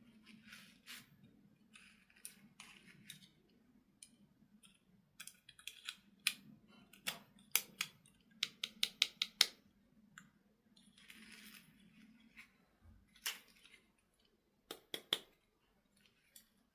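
Small plastic toy parts being handled: faint irregular clicks and taps with soft rustling, and a quick run of about half a dozen clicks past the middle.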